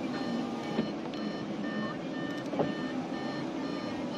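Audi A4's warning chime beeping steadily, about two beeps a second, with the driver's door open, over a low hum and a couple of light knocks.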